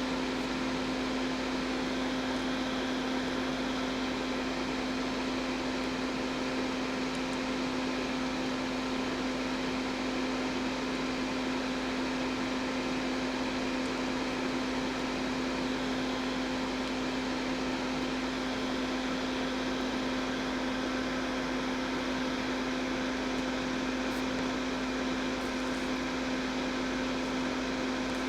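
Electric fan running steadily: an even whir with a constant low motor hum.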